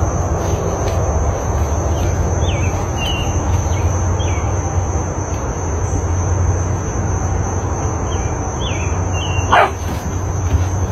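Outdoor ambience: a steady rushing background with a low hum and a thin high steady tone, with several short, quick chirps of small birds scattered through it. Near the end comes one sharp call that falls steeply in pitch.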